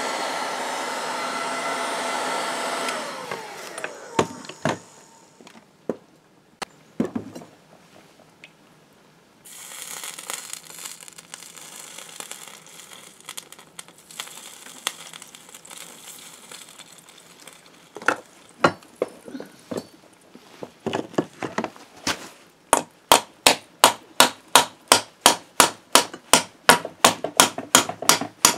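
A heat gun runs and is switched off about three seconds in, its whine falling as it winds down. Scattered knocks follow, then a quieter steady hiss with light clicks. In the last six seconds comes a fast, even run of hammer taps on the YBR 125 engine's crankcase parts, about three a second.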